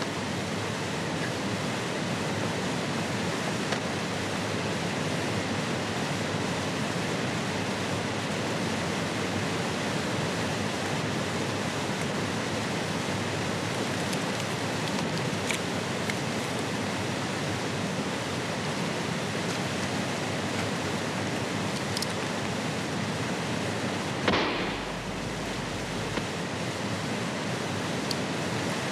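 Steady rushing of river water, an even hiss with no change in level. A few faint clicks, and one short sharp knock about twenty-four seconds in.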